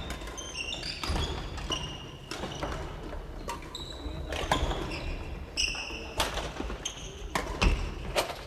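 Badminton play in a large gym: sharp pops of rackets striking shuttlecocks and short high squeaks of sneakers on the wooden floor, repeated irregularly and echoing in the hall.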